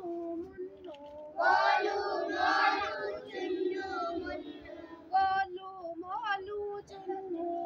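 A group of young children singing a Hindi action song in unison, with a woman's voice leading. The children come in loudly for about a second and a half, starting about a second and a half in.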